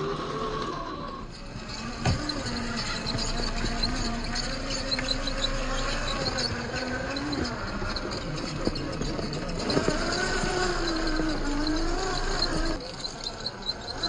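Traxxas TRX-4 RC crawler's electric motor and gear drivetrain whining as it crawls over rock, its pitch rising and falling with the throttle.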